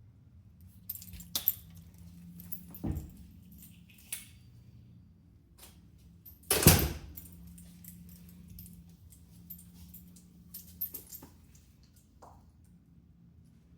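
Keys jangling with scattered small clicks and knocks, and one loud thud about halfway through.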